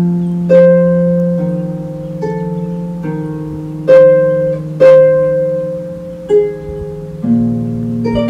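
Pedal harp playing a slow melody: single plucked notes, each ringing on and fading, over held low bass notes, with a new chord near the end.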